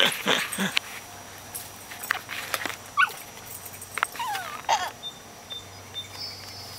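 A dog whimpering and yipping in short, scattered cries, a couple of the whines falling in pitch.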